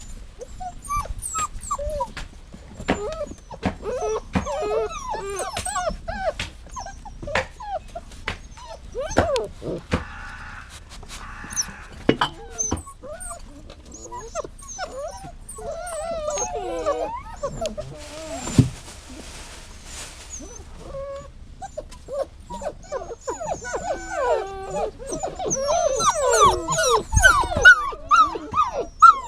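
A dog whining and whimpering: many short high-pitched cries that rise and fall, with scattered clicks, getting busier and louder over the last few seconds.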